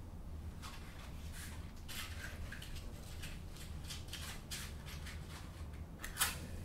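A matchbox being handled, with a series of short scratchy rustles, then a match struck on the box about six seconds in, the sharpest and loudest sound.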